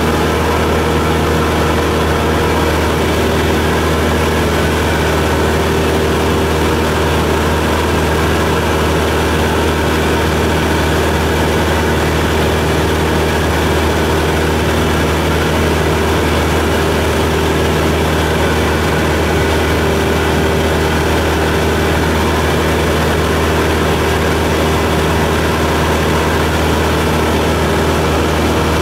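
Steady drone of a Cessna 172's piston engine and propeller in flight, heard inside the cabin, holding an even pitch and loudness throughout.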